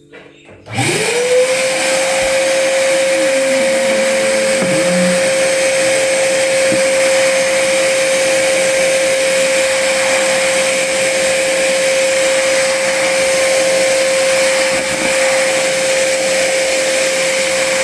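Trumax MX0120 20-litre wet/dry vacuum cleaner switched on about a second in, its motor whine rising quickly to a steady pitch over a rush of air. It runs steadily while sucking spilled water out of a sofa.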